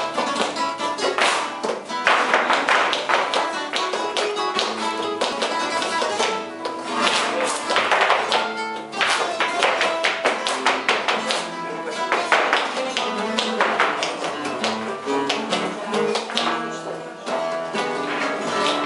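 Live flamenco: acoustic guitars playing with handclaps (palmas) and runs of rapid percussive footwork (zapateado) from the dancers' shoes, loudest in bursts a couple of seconds, about seven seconds and about twelve seconds in.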